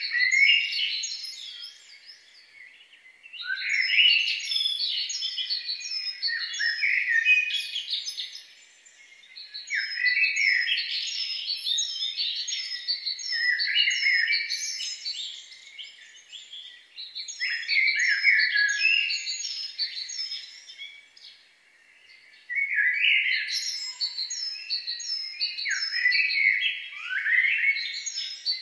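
A songbird singing long phrases of chirps and warbled, swooping notes, each phrase lasting several seconds, with short pauses between them.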